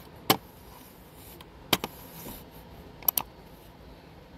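Five short, sharp clicks over faint room tone: one single click, then two close pairs about a second and a half apart.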